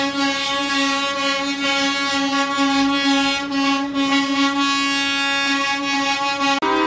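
Tractor-trailer air horn held in one long steady blast, then a different, higher-pitched horn sounds near the end.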